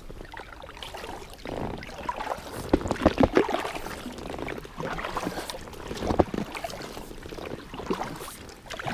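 Double-bladed kayak paddle dipping into and pulling through river water, the blades splashing and dripping as the strokes alternate from side to side.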